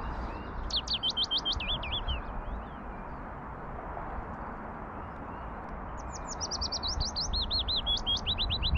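A songbird singing: two bouts of quick, repeated sweeping notes, one about a second in and another starting around six seconds in, over a steady low rumble.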